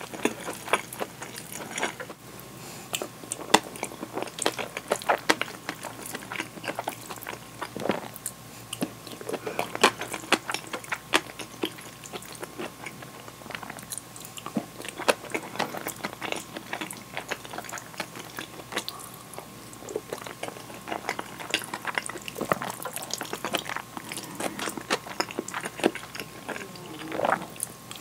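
Close-miked wet chewing and lip smacks of a person eating curry and rice, with frequent sharp clicks, and the wooden spoon scraping and tapping the bowl as she scoops.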